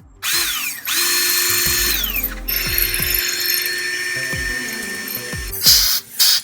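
Handheld power tool motor spinning up and winding down twice in quick succession, then running more steadily. A couple of sharp, loud bursts come near the end.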